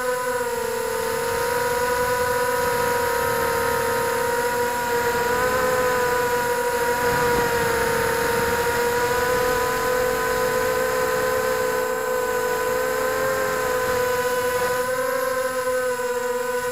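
Radio-controlled helicopter's motor and rotor running in flight: a steady whine of several held tones whose pitch wavers slightly with throttle, over a rushing noise.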